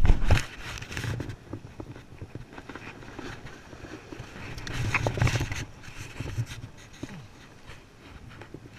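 Close handling noises from a landed summer flounder being held and shifted on wet jetty rock: irregular knocks, scuffs and rustling, loudest right at the start and again about five seconds in.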